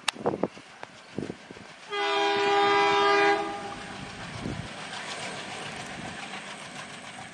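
WDM-3A diesel locomotive sounding its horn in one steady blast of about a second and a half, about two seconds in. Before and after the blast, the steady sound of the diesel engine and train running on the track as the train approaches.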